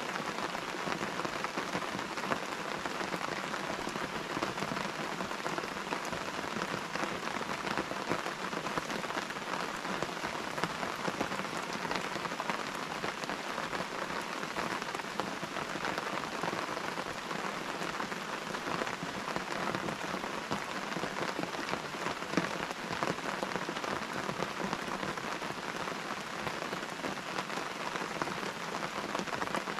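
Steady rain, a dense even patter of many drops at a constant level.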